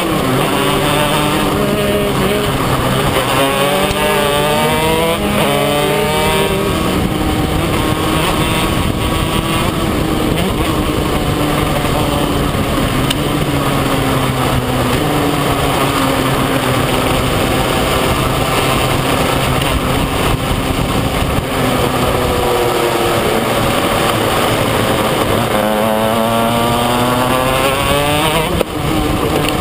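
Racing kart's engine heard on board at full race pace. It revs up hard out of corners, its pitch climbing steeply near the start, again a few seconds in and near the end, and holds steadier or sags through the middle as the driver lifts for turns.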